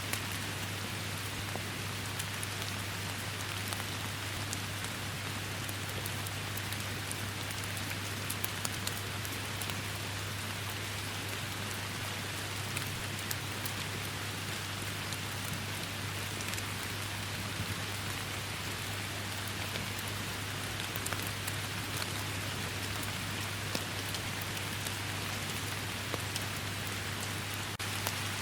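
Steady rain falling, a continuous hiss with many individual drops ticking sharply, over a constant low hum.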